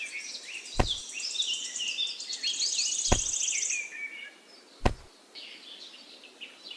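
Songbirds chirping and trilling, with sharp knocks about every two seconds, four in all.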